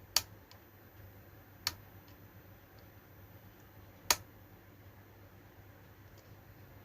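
Three sharp, faint clicks a second or two apart, from the switch on an opened linear bench power supply being worked, over a low steady hum.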